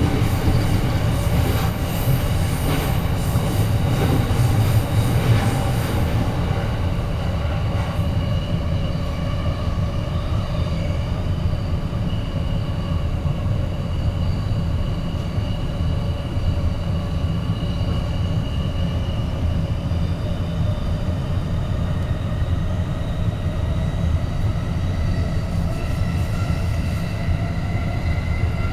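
A train running: a steady low rumble with faint whining tones above it, which rise slightly in pitch near the end.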